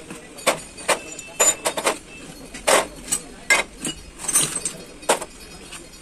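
Irregular metallic clinks and knocks, about nine in six seconds, as steel truck gearbox parts are handled and set down in a metal tray of oil.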